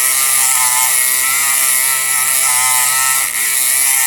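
Kronos electric pick gun buzzing as its vibrating pick works the pins of a lock with spool pins, its pitch wavering as it runs. It cuts out briefly about three seconds in, then starts again.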